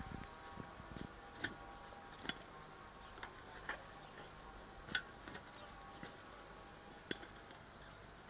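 Fork-type hand soil loosener ('miracle shovel') being worked through garden soil: irregular sharp clicks and scrapes from its metal tines as it levers up earth and couch-grass roots, over a faint steady hum.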